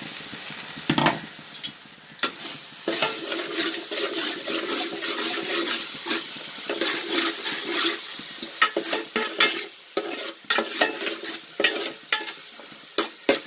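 Ginger-garlic paste and sliced shallots sizzling in hot sesame oil in an aluminium pot, stirred with a spoon that scrapes and knocks against the pot in frequent sharp clicks.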